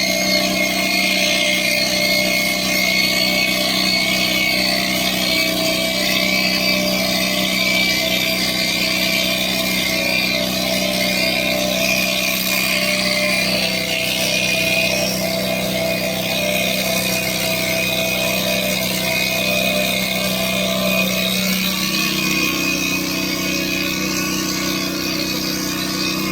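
Electric hair clippers running steadily as they clip a goat's hair, a continuous motor hum whose tone shifts slightly about 22 seconds in.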